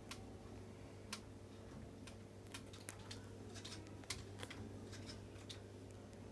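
Light, irregular clicks of keys being pressed, about a dozen over a few seconds, over a steady low hum.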